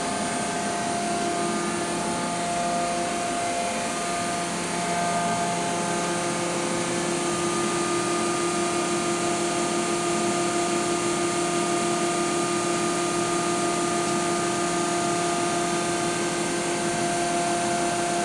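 Mazak VCN 410A-II vertical machining center running under power, a steady machine whir with several steady hum tones, getting a little louder about five seconds in.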